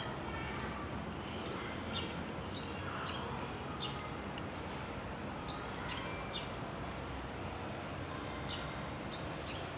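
Small birds chirping in short, repeated high calls, roughly one every half second to a second, over steady background noise, with a few faint clicks.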